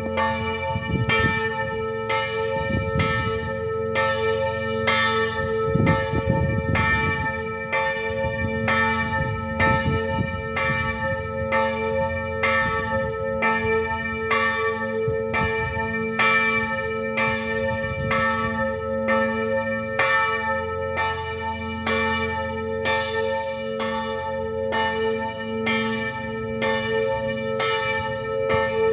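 Church bells ringing a steady peal, strokes coming evenly a little faster than once a second, with the bells humming on between strikes.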